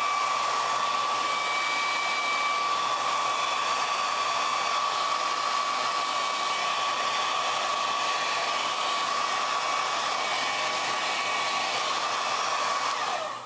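Professional hair dryer blowing steadily with a steady whine, drying freshly painted acrylic on fabric. Near the end it is switched off and the whine falls away as it winds down.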